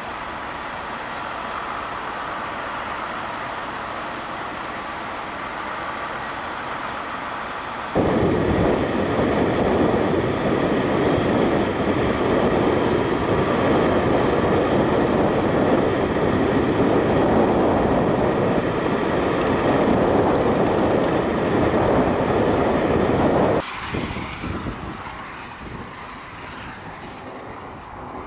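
Steady outdoor wind noise with traffic at first. About eight seconds in it gives way to a much louder rush of gusting thunderstorm outflow wind buffeting the microphone. That stops abruptly after about fifteen seconds, leaving a quieter wind hiss.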